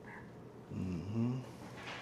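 A man's brief low murmur with no clear words, starting about a third of the way in and lasting under a second, over faint room tone.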